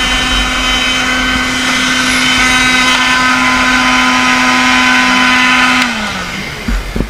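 Electric heat gun running at a steady pitch, then switched off about six seconds in, its fan motor winding down with a falling tone.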